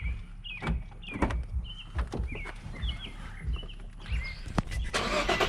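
Small birds chirping repeatedly, with scattered sharp clicks and knocks. Near the end a car engine's starter begins cranking just before the engine fires.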